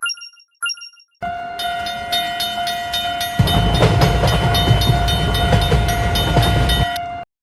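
Cartoon railway sound effect: two short bell-like dings, then a steady train horn tone over a regular clatter about three times a second, joined about two seconds later by the loud low rumble of a train passing; everything cuts off suddenly near the end.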